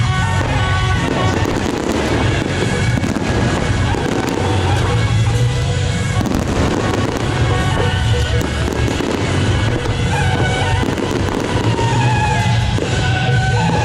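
Fireworks going off in a rapid string of sharp pops and crackles, mixed with loud music.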